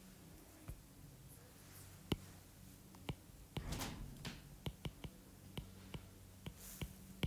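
Stylus tip tapping and sliding on a tablet screen during handwriting: faint, irregular clicks, coming thickest in the second half, over a faint steady low hum.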